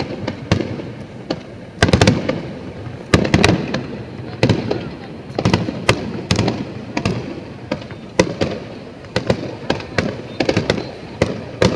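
Fireworks bursting in quick, irregular succession: many sharp bangs, often several a second, each followed by a rumbling echo.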